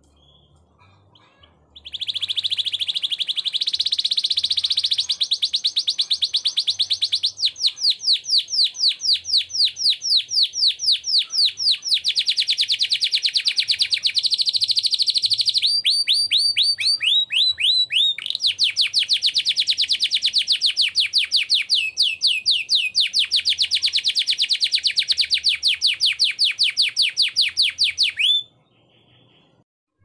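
Domestic canary singing one long unbroken song of rapid rolling trills, switching to a new trill every few seconds. It starts about two seconds in and stops abruptly near the end.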